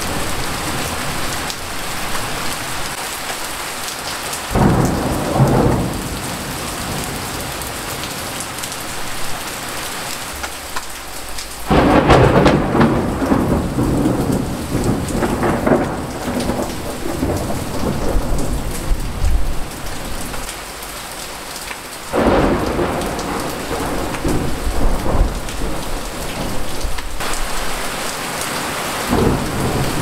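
Heavy rain falling steadily, recorded in mono on a Tascam DR-40 handheld recorder's built-in microphone without a windscreen. Several peals of thunder rumble over it: a short one about five seconds in, the loudest about twelve seconds in, rolling on for several seconds, another about twenty-two seconds in, and a new one starting near the end.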